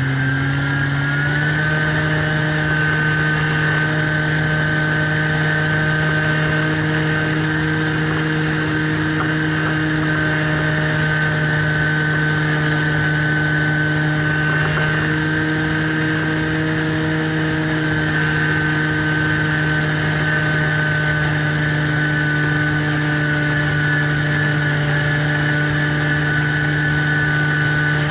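Radio-controlled model plane's motor and propeller running at steady throttle: a constant hum with a high whine above it. Its pitch steps up slightly in the first second, then holds.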